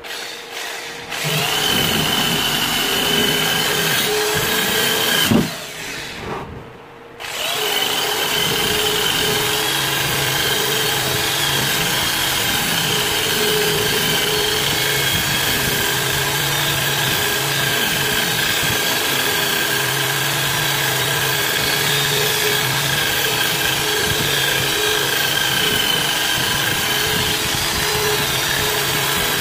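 Electric drill spinning a wire wheel brush against a rusty steel trowel blade, scrubbing the rust off: a steady motor whine mixed with the scratching of the wire bristles on metal. It cuts out briefly with a knock about five seconds in, then starts again and runs steadily.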